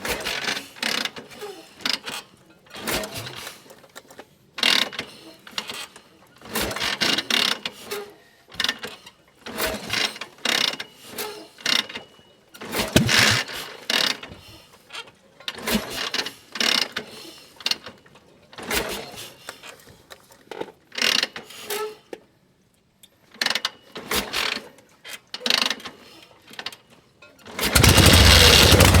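Metal gear-shifting mechanism clunking and clicking in a long run of short, irregular shifts with brief pauses between them. About a second and a half before the end, a loud steady engine-like rumble starts.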